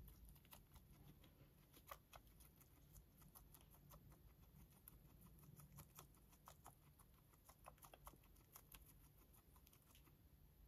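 Silkie guinea pig chewing a crisp lettuce leaf: faint, quick, irregular crunching clicks, several a second.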